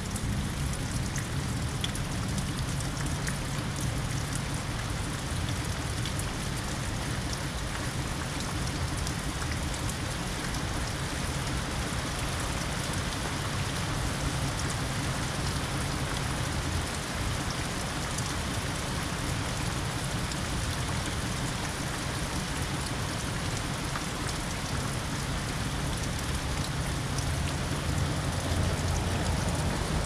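Steady rain falling on shrubs, a lawn and a wet street. Near the end a car approaches on the wet road, its tyre noise swelling over the rain.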